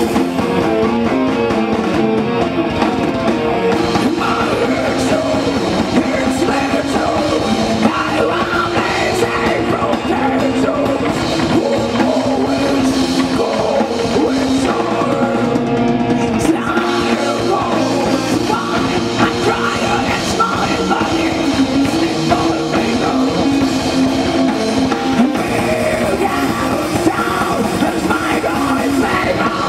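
Live rock band playing loud, with a drum kit and a woman singing into a microphone.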